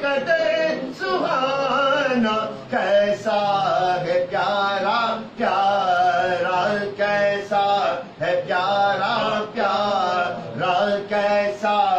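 A man chanting a naat, Urdu devotional verse in praise of the Prophet, in a melodic voice, singing short wavering phrases with brief breaks between them.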